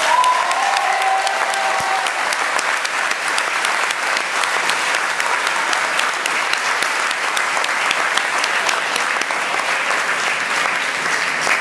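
Crowd applauding steadily around a boxing ring, dense clapping throughout, with a voice calling out briefly at the start.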